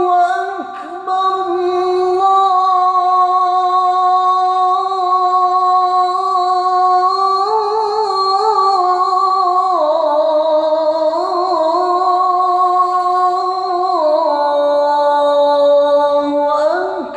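Muezzin chanting the adhan (Islamic call to prayer), holding one long, melismatic vocal line with wavering ornaments. The pitch steps down twice, about ten and fourteen seconds in, and rises again just before the end.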